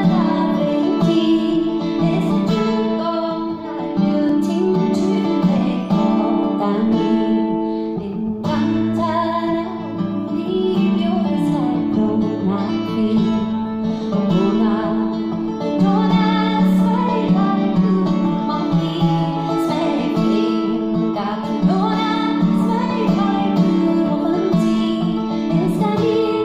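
Live folk music: a woman singing a melody to a strummed acoustic guitar, heard through the stage sound system.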